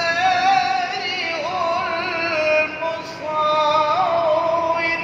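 A single voice reciting the Quran in the drawn-out melodic style, holding long notes with wavering, gliding ornaments.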